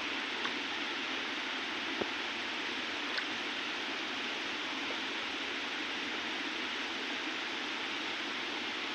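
River water flowing steadily, with a few faint clicks in the first three seconds.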